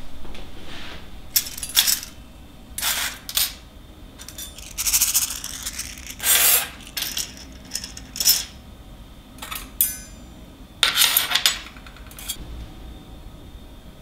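Small chrome-nickel stainless steel combustion-chamber parts handled on a perforated steel welding table: a series of separate metallic clinks and short scrapes about a second apart.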